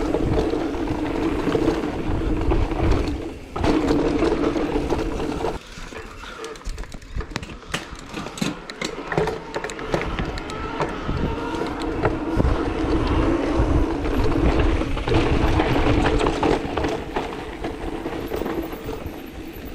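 Electric mountain bike being ridden over a rough trail: constant rumbling and rattling from tyres and frame over bumps, with a steady hum that fades for several seconds in the middle, then comes back.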